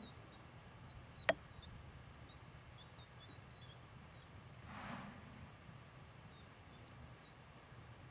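Faint open-field ambience with scattered small bird chirps. A single sharp click comes a little over a second in, and a brief breathy rush of noise comes near the middle.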